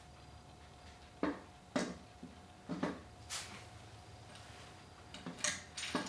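About six sharp, irregular metal clicks and knocks as the EGR pipe is worked into place on a supercharged GM 3800 engine, over a faint steady hum.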